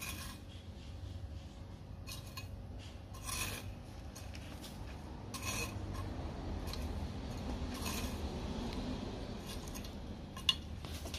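Small metal hand hoe scraping through loose garden soil as a seedbed is levelled: a handful of separate rasping strokes a second or two apart, with a sharper knock near the end, over a low steady rumble.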